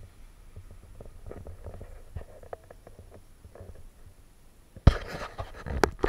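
Handling noise from a camera carried by someone walking: faint rustles and clicks, then about five seconds in a loud knock, a short burst of rubbing and a sharp click.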